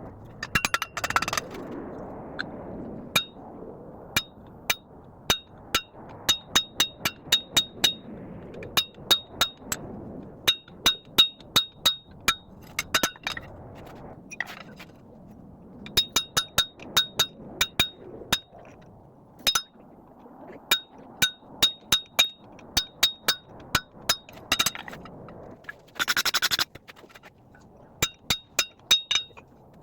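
Hand hammer striking a hot steel bar on an anvil in quick runs of blows with short pauses between, each blow ringing with a clear high metallic tone. A short rasping scrape comes right at the start and again near the end.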